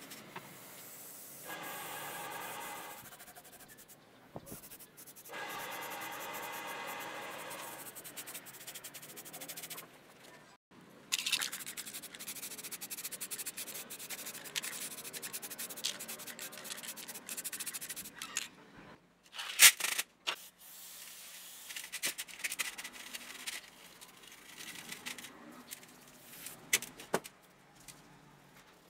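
Compressed-air paint spray gun hissing in two steady bursts, the second longer. Then irregular rubbing and scrubbing of small bicycle parts with a brush and rag, with scattered clicks and one sharp knock.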